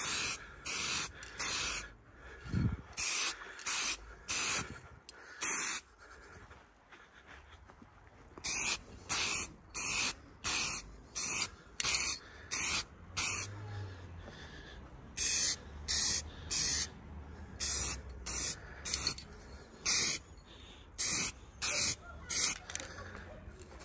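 Autotek matt black aerosol spray paint can hissing in many short spurts, each about half a second, in runs of several with pauses of a second or two between: light dusting coats going onto a metal top yoke.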